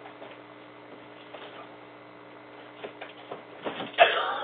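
Low steady hiss and hum of a home security camera's microphone in a small room, with a few faint taps and rustles as items are handled. A louder rustling burst comes about four seconds in.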